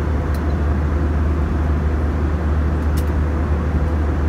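Steady cabin noise inside an Airbus A321 in flight: a deep drone of engines and airflow under an even rushing hiss, with a faint click about three seconds in.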